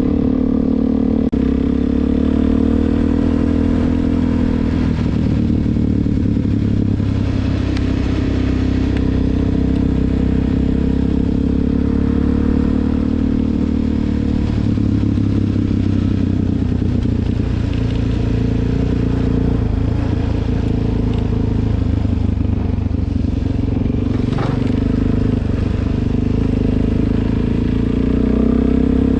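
Suzuki DR-Z400's single-cylinder four-stroke engine running under way, its note shifting up and down with the throttle near the start and again near the end, steadier in between.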